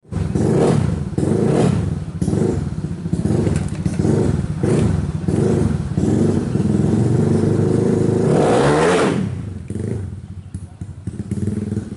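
Suzuki Smash motorcycle engine bored out to 130cc, through an AHRS racing exhaust, revved in quick repeated throttle blips, then held at high revs. A little before nine seconds the revs fall away and it settles to a lower idle.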